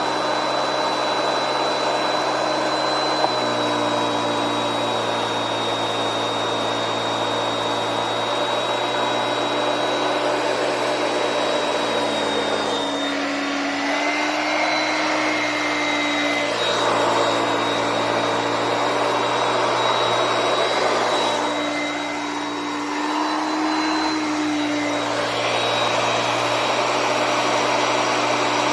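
Hoover Concept 1 Power Drive upright vacuum cleaner running with a steady motor whine. Twice, for a few seconds each, its pitch shifts and the sound grows rougher, then settles back.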